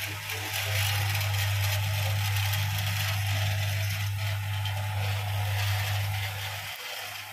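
Livestock-feed mixer running on test, driven by an electric motor through a V-belt and worm-reduction gearbox: a steady low hum with an even rattling hiss above it.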